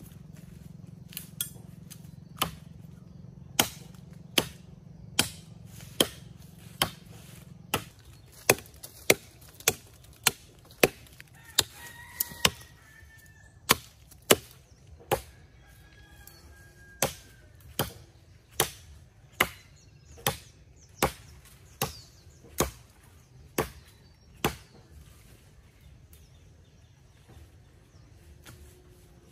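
Machete chopping into the base of a slender tree trunk: about thirty sharp, even blows, a little over one a second, with a short pause midway. The blows stop about five seconds before the end.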